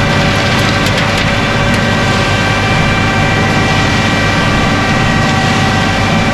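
A concrete truck's engine runs loud and steady at a raised speed, with a steady whine over its rumble. A few light knocks come in the first second.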